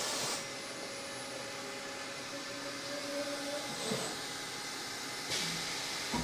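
Milltronics TRM 3016 CNC vertical mill running as the face mill lifts off the cast iron fixture plate after facing. A steady hiss drops away about half a second in, leaving a quieter whir of the spindle and axes, and the hiss comes back near the end as the machine heads into a tool change.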